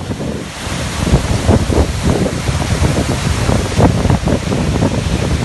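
Floodwater of a desert flash flood rushing down a wadi in a loud, steady wash. Wind buffets the microphone in irregular low thumps throughout.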